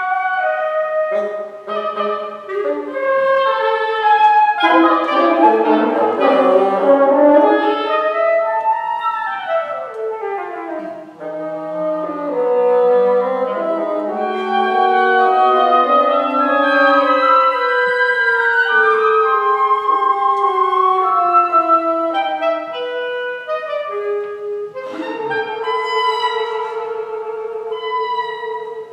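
Woodwind quintet of flute, oboe, clarinet, bassoon and French horn playing contemporary chamber music. It starts suddenly with busy, overlapping notes and sliding pitches falling then rising in the middle. Near the end comes a sharp attack and a long held chord.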